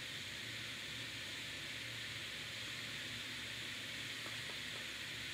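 Steady hiss of background noise and microphone self-noise, with a faint low hum underneath; nothing else happens.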